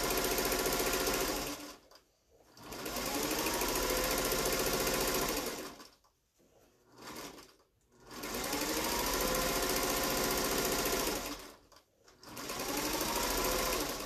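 Electric sewing machine stitching in runs of two to three seconds with short pauses between, plus one brief burst in the middle; the motor's pitch rises as each run starts. It is running a little loud and rattly, which the sewers take as a sign that it needs oiling.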